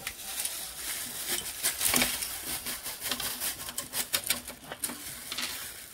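Thin plastic bag rustling and crinkling as it is handled, in quick irregular crackles.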